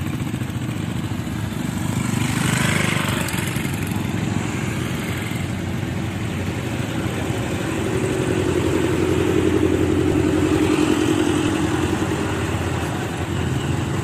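Scooter and motorcycle engines running, joined by the diesel engine of a yellow backhoe loader that drones louder as it passes close, about two-thirds of the way through.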